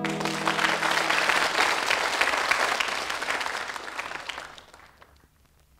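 Live audience applauding at the end of a song, as the last acoustic guitar chord dies away at the start. The applause fades out about five seconds in.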